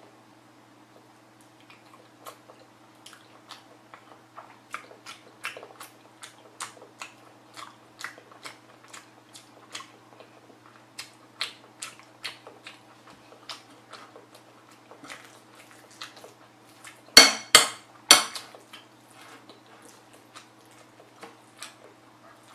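Close-up chewing of a mouthful of jajangbap (rice in black bean sauce), mouth closed: a run of soft wet clicks about two a second. About three quarters of the way in, a metal spoon clinks sharply against the bowl three times as the next spoonful is scooped.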